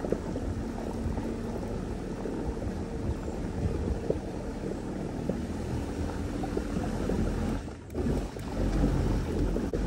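Steady rush of moving water around a small boat, with wind buffeting the microphone; the noise drops briefly about eight seconds in.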